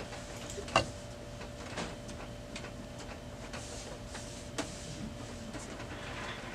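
Lint-free rag wiping the Lexmark X464's scanner glass: soft rubbing with a few light clicks and knocks, the sharpest about a second in, over a steady faint hum.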